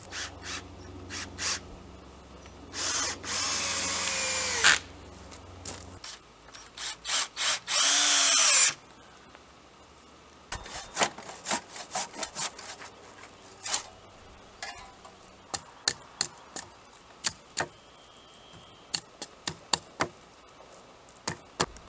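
Cordless drill driving screws into wooden poles: one run of about two seconds whose pitch falls as it stops, then a few quick trigger pulses and a second short run that also winds down, about eight seconds in. After that comes a long series of short sharp strokes from a hand saw cutting a pole.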